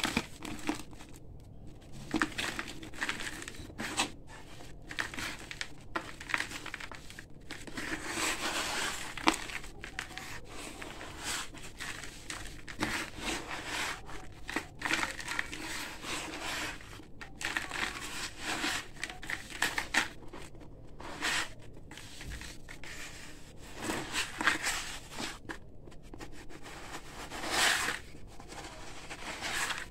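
Hands crushing crumbly concrete and squeezing gritty, sandy powder in a plastic bucket: continual crunching and grainy crackling, swelling with each squeeze.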